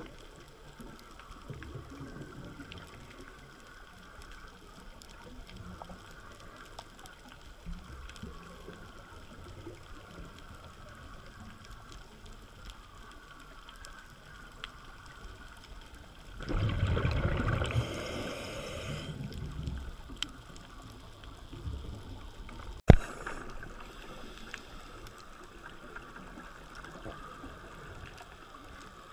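Underwater reef ambience picked up through a dive camera's housing, with a loud rush of scuba regulator exhaust bubbles lasting about two seconds past the middle, and a single sharp click a few seconds later.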